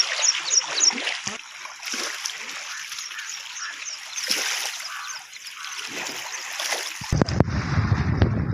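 Water splashing and trickling, with a run of short high chirps in the first second and again around four seconds in. About seven seconds in it changes abruptly to wind buffeting the microphone.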